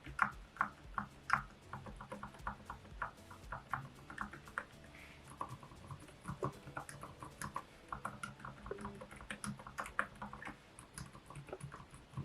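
Keys being pressed on a Keychron K10 Pro low-noise linear mechanical keyboard: many soft, irregular keystroke clicks at a quiet level.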